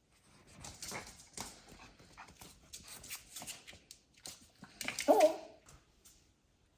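Newborn kittens hissing at a maltipoo puppy in a run of short, breathy spits. About five seconds in comes the loudest sound, a brief whimpering yelp from the puppy.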